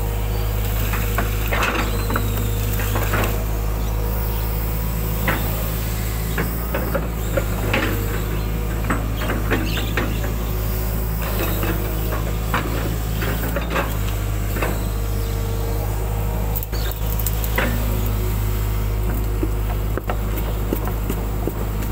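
Hitachi hydraulic excavator's diesel engine running steadily under load, with scattered knocks and clatter as the bucket digs and scrapes wet mud.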